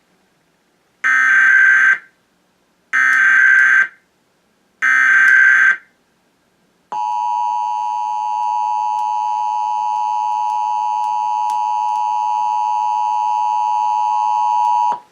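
Emergency Alert System SAME header: three roughly one-second bursts of warbling digital data tones about two seconds apart. After a short gap comes the EAS two-tone attention signal (853 and 960 Hz), a steady harsh tone held for about eight seconds before cutting off. Together they mark the start of a Required Monthly Test alert.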